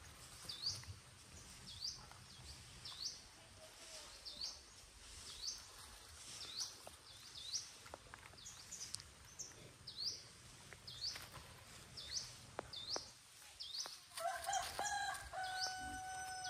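Rural birdsong: a bird repeats a short rising chirp every half second or so over a steady high hiss. A rooster crows with a long, drawn-out call near the end.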